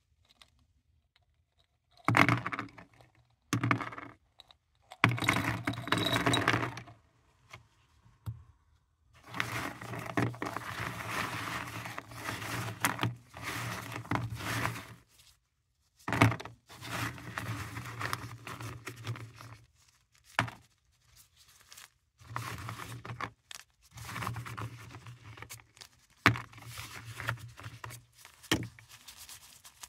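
Hard paradichlorobenzene mothball tablets clattering and scraping as a gloved hand handles them: tipped from a glass jar, then spread around and scooped up from a tray. The sound comes in irregular bursts of clicks and rustling with short pauses between.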